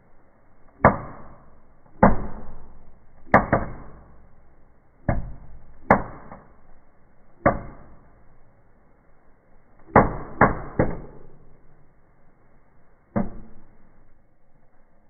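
Smartie Egg Blaster firework going off in a series of about eleven sharp bangs at uneven intervals, each with a short echoing tail. The bangs include a quick pair about three and a half seconds in and a rapid triple about ten seconds in.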